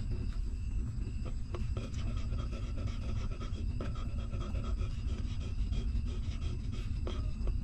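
Mother dog panting steadily, with faint scattered clicks of newborn puppies suckling.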